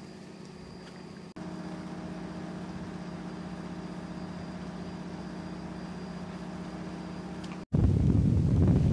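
Fishing boat's engine idling with a steady hum, louder after a cut about a second and a half in. Near the end it is cut off abruptly by much louder wind rumble on the microphone.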